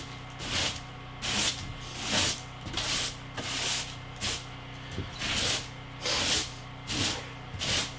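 Angle broom sweeping a bare OSB subfloor: a steady run of short bristle swishes, a little under two strokes a second.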